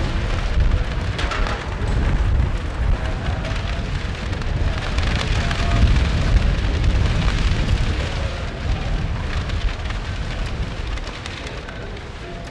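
Wind buffeting the microphone in a heavy, uneven rumble over a steady hiss, with scattered light clicks of metal tongs at the grill grate.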